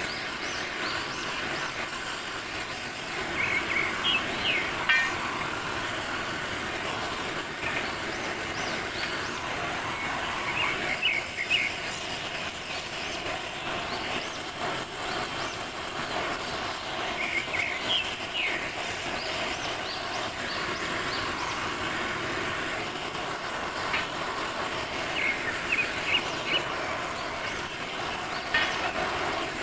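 Gas cutting torch flame hissing steadily as it heats a metal pipe to bend it, with short high chirps every few seconds.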